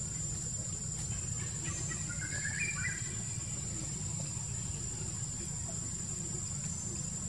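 Forest ambience: a steady high-pitched insect buzz over a low rumble, with a short run of bird chirps about two seconds in.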